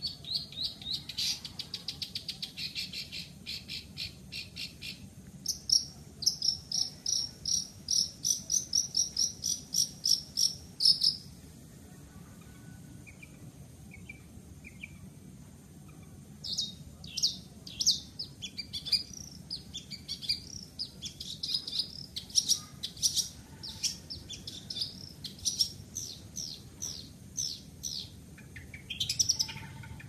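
Long-tailed shrike singing in high, sharp notes. It opens with a fast run, then gives a steady string of repeated notes at about three a second. After a pause of about five seconds, it breaks into busy chattering phrases again.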